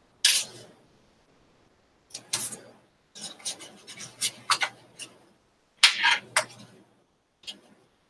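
Paper and washi tape rustling and scraping as they are handled and rubbed over a collage page, in several short bursts with pauses between.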